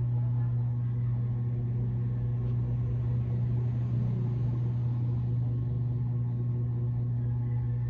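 A steady low hum with fainter steady higher tones above it, unbroken and unchanging.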